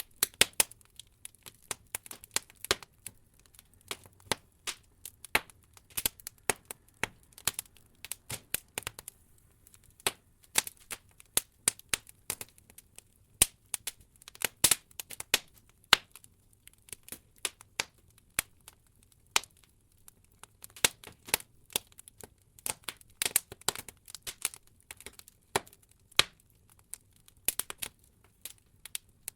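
Wood logs burning in an open fireplace, crackling with irregular sharp pops and snaps that come in quick clusters, several a second at times, over a faint low hum.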